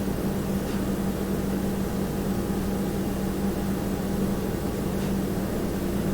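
Steady room tone from an otherwise silent indoor space: a constant low hum with a held tone and a light hiss, with no distinct events.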